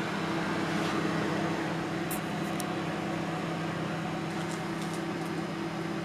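Samsung semi-commercial microwave oven running at full power, heating a cup of water: a steady hum from the magnetron and its transformer with the cooling fan's rush. It is drawing 7.6 amps and working normally after its shorted relay was replaced.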